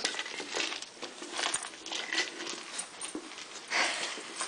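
A German shepherd nosing and pawing a weighted plastic Kong Wobbler treat toy across carpet, with sniffing and a run of soft, irregular scuffs and knocks.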